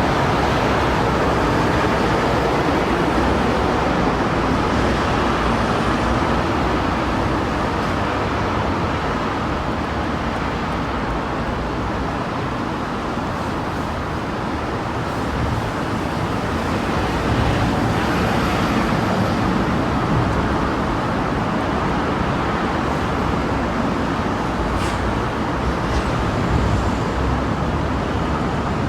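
Steady road traffic noise, an even wash of passing vehicles with no single engine standing out.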